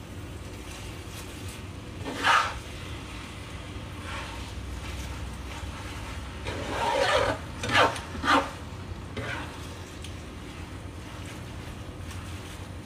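Spatula scraping and tossing rice vermicelli around a wok while stir-frying: a sharp scrape about two seconds in and a cluster of three louder scrapes around seven to eight seconds, with quieter stirring between. A steady low hum runs underneath.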